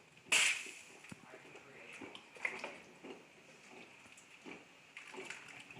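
A sharp clatter about half a second in, then small clicks and soft bubbling from a stovetop coffee percolator perking.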